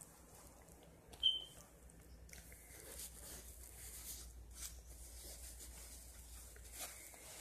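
Newborn kittens stirring in a fabric bed: faint rustling, with one short, high-pitched squeak about a second in.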